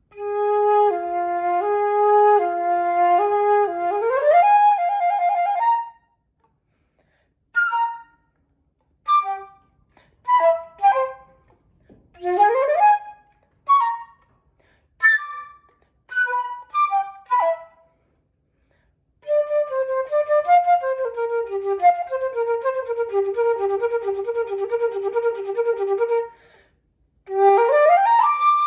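Solo flute playing. It opens with a two-note alternation that ends in a quick upward sweep, then plays short separated notes with pauses between them. After a brief silence it plays a fast repeated figure, and near the end another quick upward sweep.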